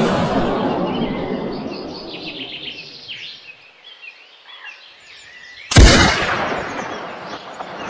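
Gunshot about six seconds in, a sharp crack with a long rolling echo, while the echo of an earlier shot fades away in the first few seconds; small birds chirp throughout.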